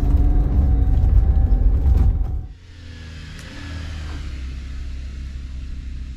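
Vehicle driving on a dirt road, engine and tyre rumble. It is loud for about the first two and a half seconds, then drops suddenly to a quieter, steady drive.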